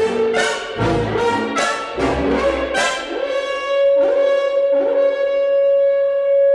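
Orchestral music led by brass: a string of about seven short, sharply accented chords, one every half second or so, then one long held note from about three seconds in.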